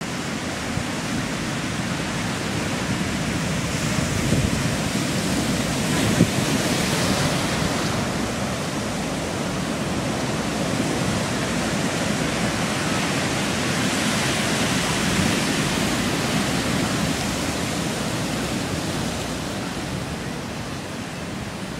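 Ocean surf breaking and whitewater washing over a lava-boulder shoreline: a steady rush that swells twice and eases near the end. A single sharp click comes about six seconds in.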